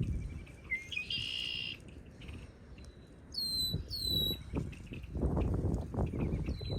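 Wild birds calling: a short call about a second in, then two quick high whistled calls that each slide down in pitch around the middle. Gusts of wind rumble on the microphone, stronger in the second half.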